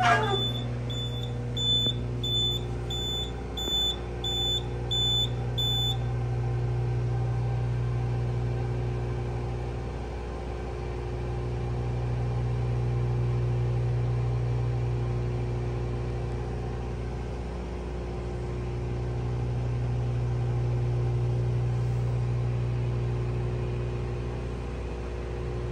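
Fire alarm panel's trouble sounder beeping about once a second, signalling a generator trouble condition, until it stops about six seconds in once the trouble is acknowledged. After that a low electrical hum from the room's transformers goes on, swelling and fading slowly.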